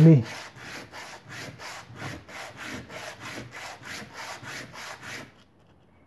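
A hydraulic disc brake pad from a recumbent trike being rubbed back and forth on fine 800-grit sandpaper, an even scraping at about three strokes a second that stops about five seconds in. The pad is being sanded flat to remove the dirt that makes the brake noisy when stopping.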